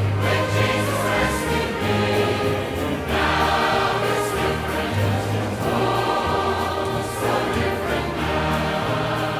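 A large church choir singing a gospel song with orchestral accompaniment, over a bass line that moves from note to note every second or so.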